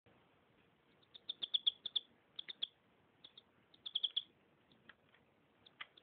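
Canary singing in bursts of short, sharp chirps. A rapid run of about ten notes comes a little over a second in, another quick cluster just before the middle, and scattered single notes between.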